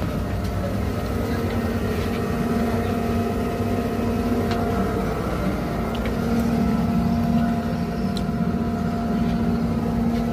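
A car ferry's engines running: a steady drone with a constant hum in it.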